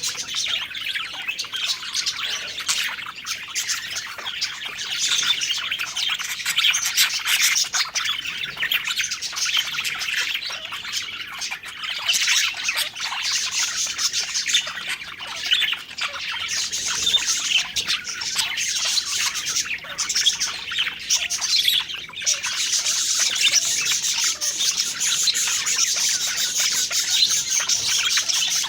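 Budgerigars chirping and warbling in a dense, continuous chatter, shifting to higher-pitched chirps about three quarters of the way through.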